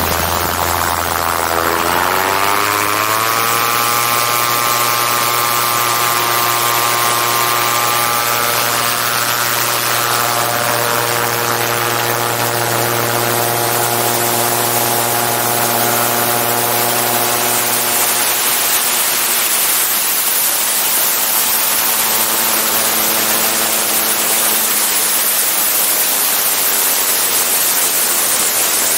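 Autogyro engine and pusher propeller running at steady power in low flight, under heavy wind rush on the outside-mounted camera. The engine tone rises in pitch about two seconds in, then holds steady, growing fainter under the wind near the end.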